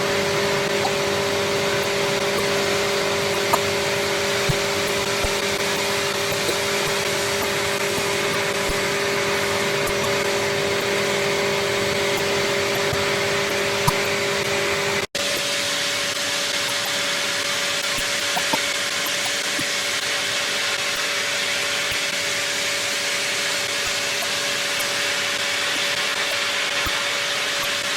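Kitamura Mycenter-3XD CNC vertical machining center cutting metal: a steady hiss with a steady two-note whine and occasional light ticks. About halfway through the sound drops out for an instant, and afterwards the whine has a different set of pitches, as a new cut begins.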